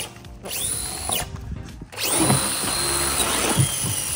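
RC monster truck's electric motor whining up to a high pitch as the truck accelerates, twice: briefly about half a second in, then held for over a second from about two seconds in before easing off.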